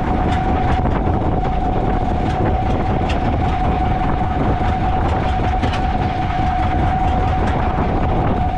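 A boat's engine running at a steady speed, a constant whine held over a low rumble.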